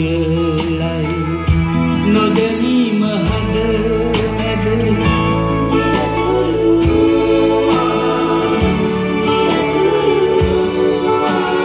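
A Sinhala song with singing over guitar and bass, played from a vinyl record through a Sansui AU-D707G Extra amplifier and Energy C6 speakers, heard in the room.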